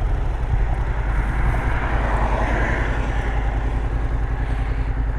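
Motorcycle engine idling steadily while the bike stands stopped.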